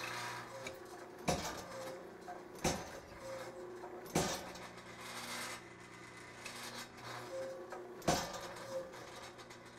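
Power hammer driving a hot cut into a glowing round bar of 52100 steel: four single blows, the first three about a second and a half apart and the last near the end, over a steady hum. The bar is being cut about 99% of the way through so it can be bent off by hand.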